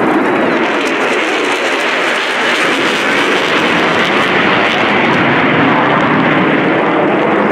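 F-35C Lightning II's single F135 turbofan jet engine as the fighter passes close overhead in a tight turn: loud, steady jet noise.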